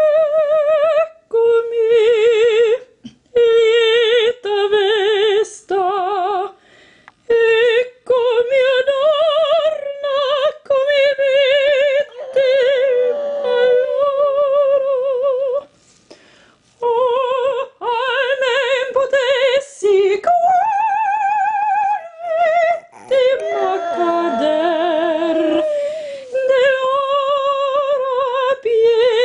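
A woman singing operatic phrases with heavy vibrato, with short breaks between phrases, while a Japanese Chin howls along; the dog's wavering howl overlaps her voice in places.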